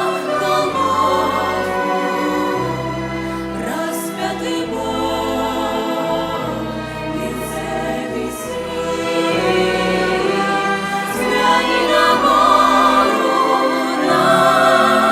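Church ensemble choir singing a Christian song, the voices wavering with vibrato over sustained low notes.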